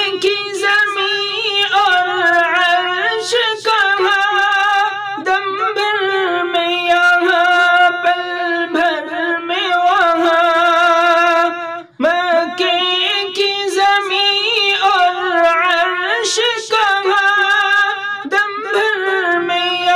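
A man singing a naat in Urdu as a solo voice, in a high register, drawing out long, ornamented notes. He breaks off briefly for a breath about twelve seconds in.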